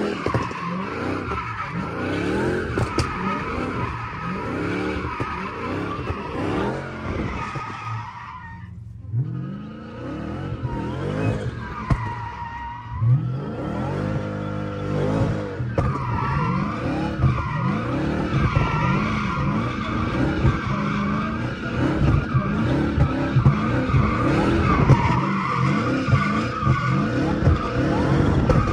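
Muscle car's V8 engine heard from inside the cabin, revving up and down repeatedly under hard driving. The revs drop away briefly about a third of the way through, then it pulls hard again.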